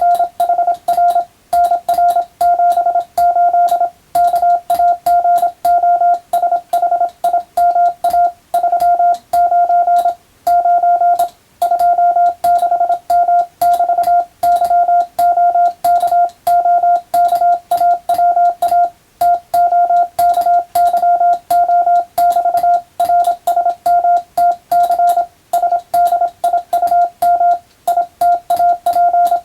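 Morse code (CW) sent on a telegraph key, heard as a steady single-pitch beep keyed rapidly into dots and dashes, with short pauses between groups and a faint click at each keying.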